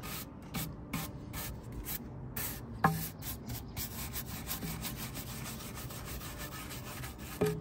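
Stiff natural-bristle wheel brush scrubbing the ceramic rim of a Big Green Egg kamado grill in rapid back-and-forth strokes, working old, damp gasket residue and grime off the rim.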